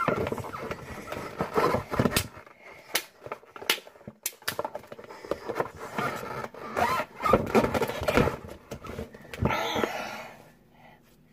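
Handling noise: scattered clicks and knocks, with stretches of rustling, as toys and packaging are moved about on a table. It dies away near the end.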